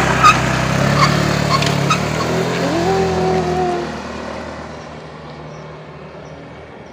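Motorcycle engine pulling away and riding off, fading steadily as it moves into the distance.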